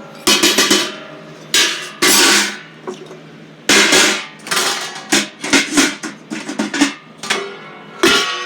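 Irregular series of loud bangs and clatters of hard objects being struck, some ringing briefly like metal, coming in a quick flurry in the second half.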